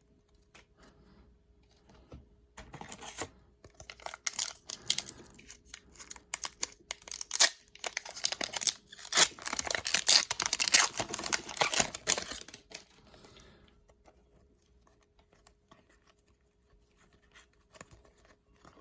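Trading-card pack wrapper being torn open and crinkled: a run of crackling tears and rustles that starts a few seconds in, is loudest past the middle, and dies away well before the end.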